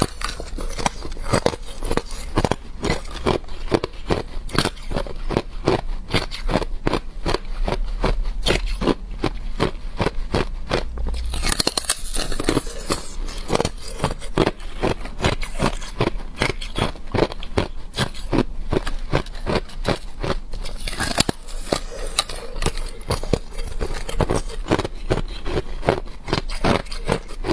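Thin, clear ice being bitten and chewed, a rapid run of sharp cracks and crunches, several a second, that carries on without a break.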